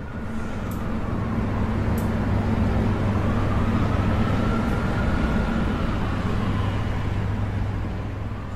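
Road traffic: a vehicle engine's steady low hum over road noise, swelling in and then easing off near the end.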